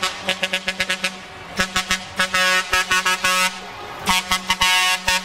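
Truck air horns sounding from passing trucks: rhythmic runs of short toots and longer held blasts of a multi-note horn chord, over the low hum of the trucks' engines.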